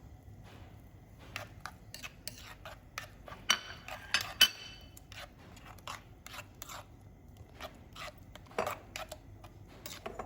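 Metal spoon clinking and tapping against bowls and dishes while spices are spooned out: scattered light knocks, with a few louder ringing clinks about four seconds in.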